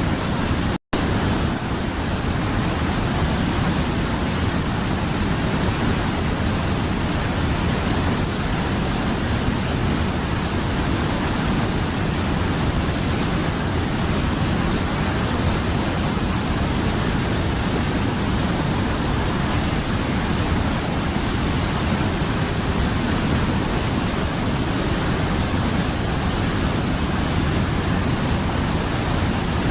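Mountain river flowing: a steady, even rush of running water. The sound cuts out for an instant about a second in.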